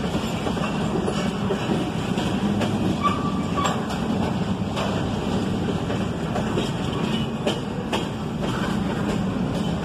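Double-stack intermodal well cars rolling past on steel rails: a steady rumble of wheels with scattered clicks and rattles, and a short squeal about three seconds in.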